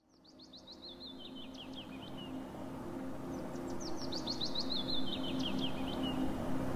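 A songbird sings two phrases, each a quick run of downward-sweeping chirps that steps lower and ends in a short flourish. It sings over a low, steady hum that fades in from silence.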